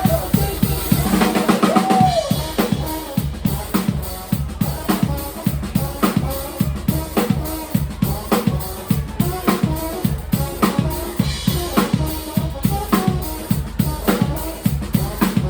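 Live band music driven by a drum kit: a steady, even beat of bass drum and snare over a continuous low bass line.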